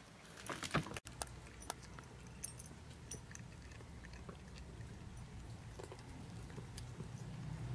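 Cats eating from food bowls: faint, scattered small clicks of chewing.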